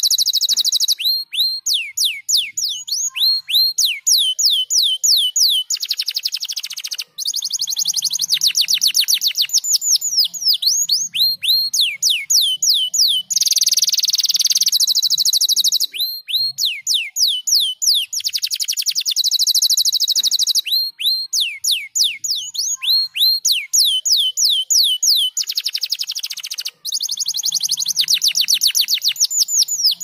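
Domestic canary singing without a break: fast trills of rapid, repeated falling notes, several a second, alternating with dense high buzzing rolls, one of them around the middle.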